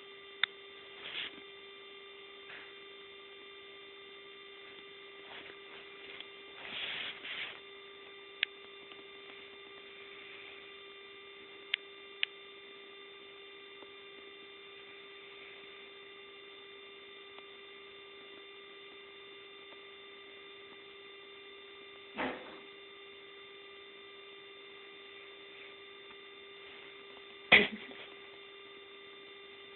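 A steady electrical hum made of several fixed tones, with a few brief scattered noises over it and one sharp click near the end.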